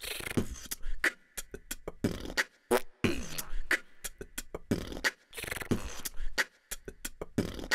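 Beatboxing: a fast, rhythmic run of mouth-made percussion, low thumps mixed with sharp clicks and hisses.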